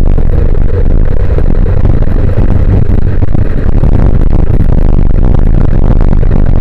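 Loud, steady rush of wind buffeting and road noise on the microphone of a camera mounted on a moving vehicle travelling along an asphalt road.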